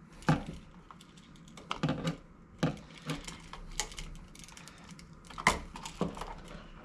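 Irregular clicks and taps from handling a wall switch, its copper wiring and hand tools while a traveler wire is connected to the switch's screw terminal.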